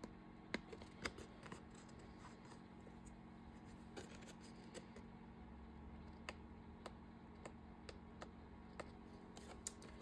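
Faint, irregular small clicks and taps of paper and craft tools being handled on a work table, over near-silent room tone.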